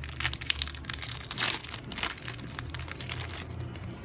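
Foil wrapper of a Match Attax trading-card booster pack crinkling as it is torn open and handled, a quick run of crackles loudest about a second and a half in.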